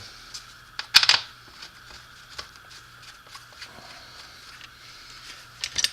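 Steel bolts clinking against a metal transfer case housing as they are handled and set in place: one sharp metallic clink about a second in, then a few faint ticks.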